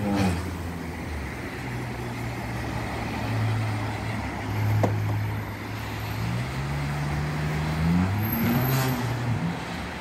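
Car engine running steadily over road noise. Its pitch climbs in the last few seconds, then rises and falls quickly a little before the end as it revs.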